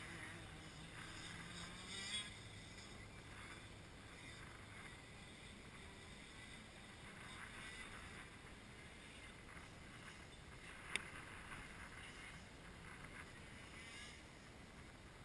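Faint, distant shifter kart engines running out on the track, with one sharp click about eleven seconds in.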